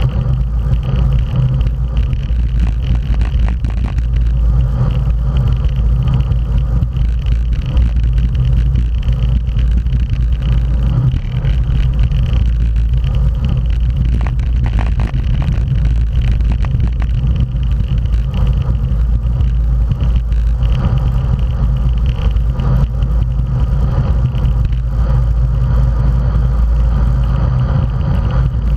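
Wind rushing over the microphone of a bike-mounted action camera, with steady road rumble from a road bike riding at race speed on asphalt.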